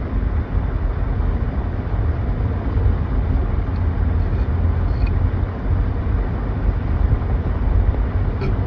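Steady road and engine noise inside a moving car's cabin: an even, low rumble.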